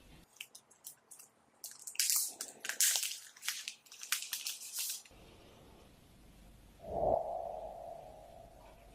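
Packaging being handled: a run of crinkling and crackling rustles, like plastic wrap and cardboard, for about five seconds. About seven seconds in comes a single thump followed by a mid-pitched ring that fades over a second or two.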